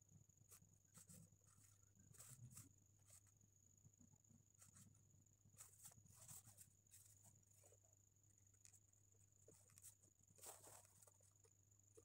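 Near silence: faint scattered scratches and small taps of a highlighter pen handled and writing on paper, over a faint steady hum.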